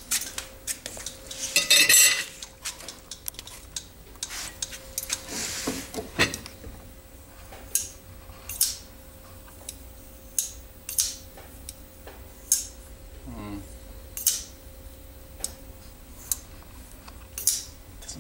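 Folding knife's blade being flicked open and snapped shut over and over: irregular sharp metallic clicks, about one a second, as the detent and lock engage. A louder metallic clatter comes about two seconds in.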